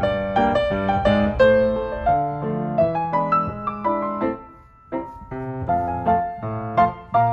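Background piano music, a gentle melody of single and chorded notes, with a brief pause about four and a half seconds in.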